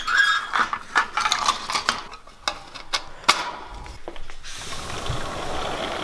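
A plastic food cup being handled against the wires of a birdcage: a run of sharp clicks and rattles of plastic on wire, then a steady rushing noise over the last second and a half.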